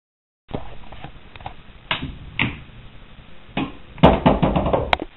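Pool balls clacking on a pool table: a few single knocks, then a quick run of clacks about four seconds in as struck balls hit one another.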